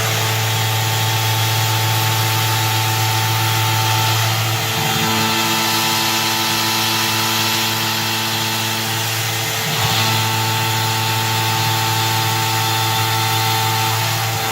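PM-25 CNC milling machine taking a shallow facing cut with a 5/8" insert end mill at 40 inches per minute: spindle and drives running with a steady hum of several constant tones over a hiss. The tone pattern shifts briefly about five and ten seconds in.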